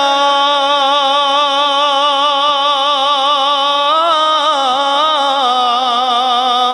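A man singing Punjabi devotional kalam, holding one long wavering melismatic note that steps up in pitch about four seconds in.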